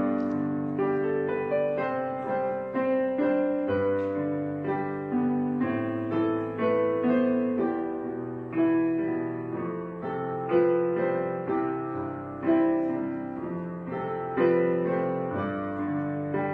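Background piano music: slow notes, each struck and left to ring and fade.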